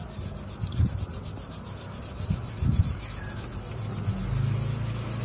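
A carbon motor brush being rubbed by hand on a sheet of sandpaper: soft, irregular scratchy rubbing strokes with a few louder scrapes. The oversized grinder/drill brush is being sanded down to fit a blender motor's brush holder.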